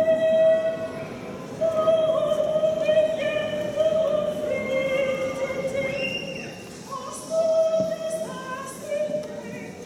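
Mixed choir of women and men singing in long held notes, with short breaks between phrases about a second in and again near seven seconds.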